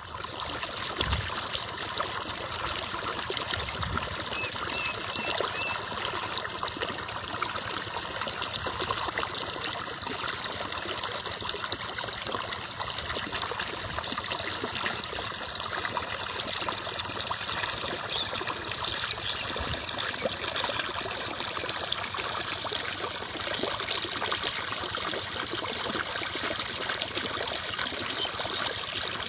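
Irrigation water running and trickling steadily through a flooded maize field, with a couple of low thumps in the first few seconds.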